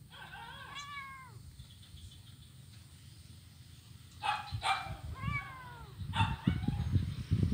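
Kitten mewing twice, each mew rising then falling in pitch: one just after the start and one about five seconds in. A few short, sharp sounds come around the second mew, and low rumbling builds near the end.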